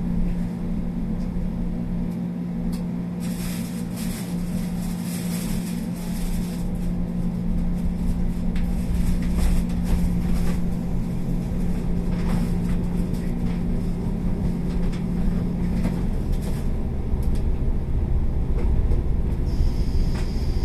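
Interior noise of a JNR 381 series train car: a steady low hum over the rumble and rattle of the car on the track. The hum stops about three-quarters of the way in, and the rumble grows louder. A high, steady whine starts near the end.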